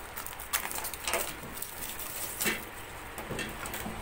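Thin plastic protective wrap crackling and rustling in irregular short crackles as it is peeled and pulled off a stainless-steel gas stove's burner.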